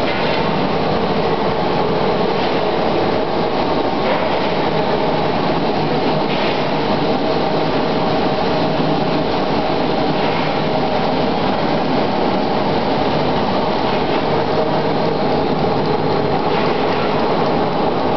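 Sawdust briquetting presses and their production line running steadily, a continuous mechanical hum with a few faint knocks.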